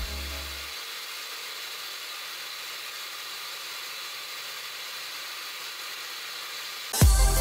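Belt grinder running with a piece of steel pressed against the abrasive belt: a steady grinding hiss and whir. Loud electronic music with a heavy beat cuts in near the end.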